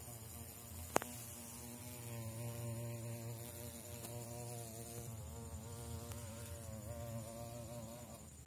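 Wasp buzzing its wings in a steady, wavering hum that stops just before the end, with one sharp click about a second in.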